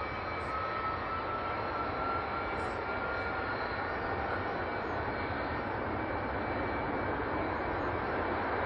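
Jet airliner engine running steadily, a continuous rushing noise with a whine that rises slowly in pitch over the first few seconds and then holds.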